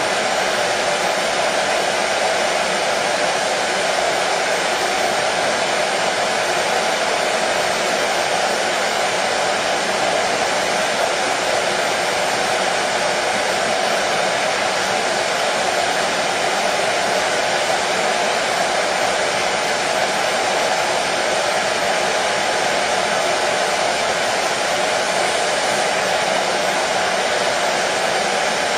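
Electric hair dryer running continuously at a constant setting, a steady even rush with a strong midrange hum and no change.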